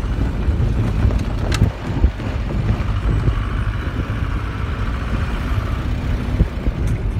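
A moving vehicle's engine and road noise heard from inside the cabin: a steady low rumble, with some wind noise over it.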